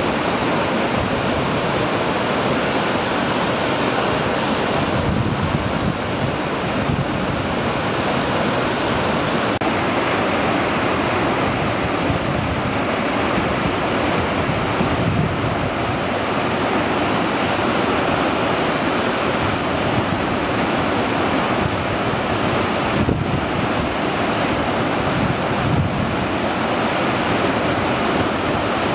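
Loud, steady rushing of a mountain torrent, unbroken throughout.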